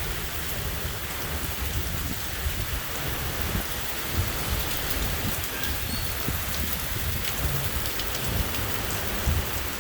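Heavy rain pouring down in a steady, dense hiss, with scattered low thuds.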